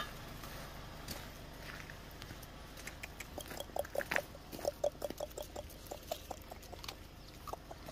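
A dog making a quick series of short, low sounds, three or four a second, starting about three seconds in and dying away near the end, as it comes up holding a dog chew in its mouth.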